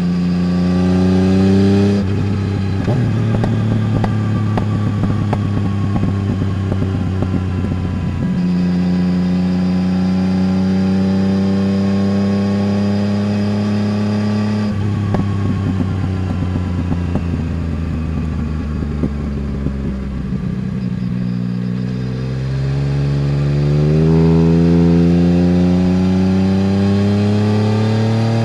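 Yamaha Tracer 900 GT's 847 cc inline-three engine running through a full Roads Italia aftermarket exhaust while riding. The engine pitch rises under acceleration at the start, shifts and holds through the first half, falls steadily as the bike slows around the middle, then climbs again in two pulls near the end.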